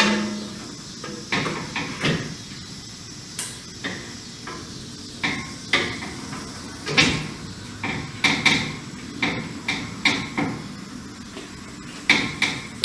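Irregular clunks and knocks of metal car parts being handled and fitted in an engine bay: about a dozen sharp hits, unevenly spaced.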